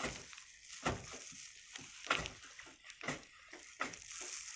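A long pole jabbed into a volcanic sand-and-rock cliff face, giving a sharp knock about once a second. Small stones and sand patter down between the knocks, with a hiss of running sand near the end.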